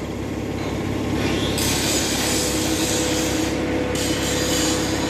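Sheet-metal roll-forming machine running, steel sheet grinding through its rollers, with a steady hum coming in about two seconds in.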